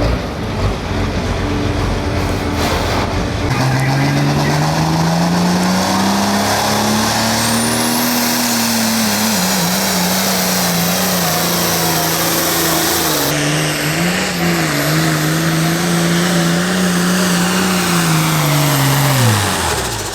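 Pro Farm pulling tractor's diesel engine at full throttle dragging the sled down the track. The engine note climbs a few seconds in, holds high and steady with a few small dips, and carries a high whistle over it. Near the end the revs fall away sharply as the pull ends.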